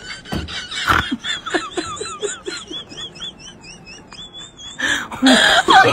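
Onlookers snickering and trying to hold back laughter, in short repeated pulses, with a high wavering chirp repeating over it. A louder outburst of laughter comes about five seconds in.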